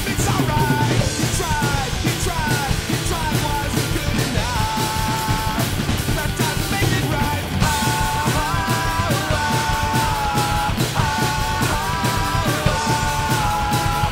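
Punk-rock song with a shouted, sung vocal line, played loud, with a Mapex drum kit driving along hard: dense snare and kick hits under constant cymbal crashes.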